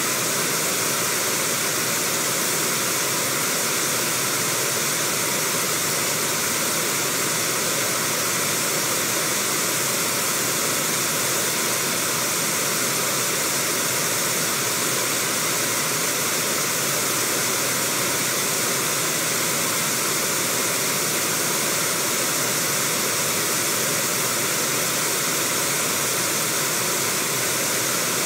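Steady rush of river rapids, water pouring over rocks in a continuous, unchanging roar of white water.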